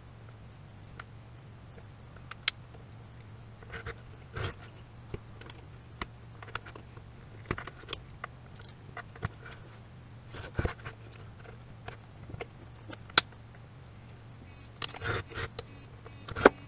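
Scattered clicks, taps and scrapes of a metal hand tool prying and digging at the plastic housing of a Siemens VDO BSM fuse box, busier near the end, over a low steady hum.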